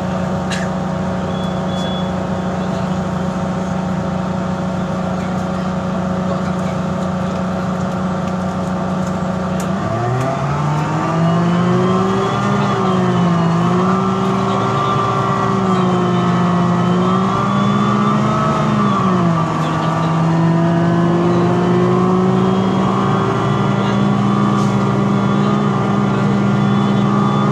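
Diesel engine of a Mercedes-Benz O405G articulated bus, which the uploader says is a bad engine making a weird sound. It runs at a steady idle for about ten seconds, then revs up as the bus pulls away, its pitch rising and falling several times under the Voith DIWA automatic gearbox, and drops back near the end.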